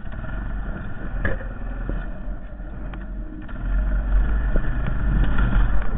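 Honda Foreman 450 ATV engine running steadily, growing louder about three and a half seconds in, with a few short knocks over it.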